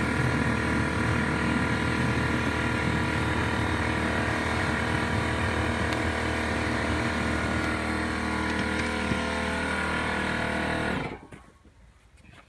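Handheld electric paddle mixer running steadily at one speed, blending shaving-cream-thick foam into cement slurry to make aircrete; it cuts off abruptly about 11 seconds in.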